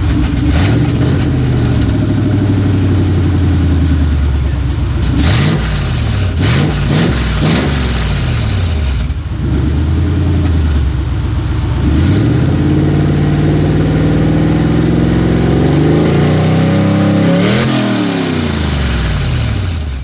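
Car engine revving hard, its pitch climbing and falling several times, with a run of quick rev blips partway through and a long pull that rises and holds near the end.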